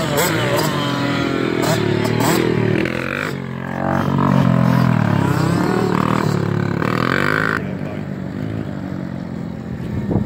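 Small dirt bike engines being ridden around a track, revving up and easing off again and again, so the pitch rises and falls; a little quieter in the last couple of seconds.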